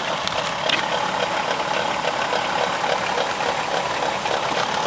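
2002 Dodge Caravan engine idling with a steady, rhythmically repeating squeak from the front of the engine, coming from the alternator. The owner traced it to the alternator, which had a wiggle to it.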